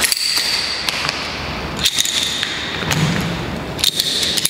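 Rope-access climbing hardware clanking as a hand ascender is pushed up the rope during a climb: three sharp clicks about two seconds apart, each with a brief metallic ring.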